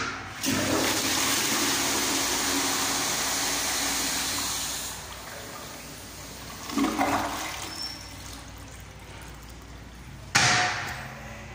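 Commercial flushometer toilet flushing: a click as the valve is tripped, then a loud rush of water for about four and a half seconds that tapers off, with a short second surge about seven seconds in. A sharp knock comes near the end, as the toilet lid is let down.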